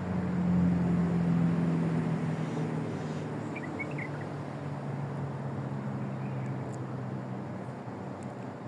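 A low engine drone, louder over the first couple of seconds and then easing off with a slight drop in pitch, as of a passing motor vehicle. A few faint short chirps come about four seconds in.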